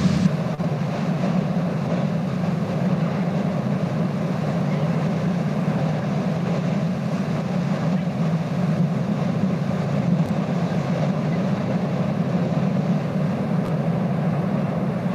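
A steady, deep roar of a churning lava lake in a volcanic crater, recorded at the crater rim.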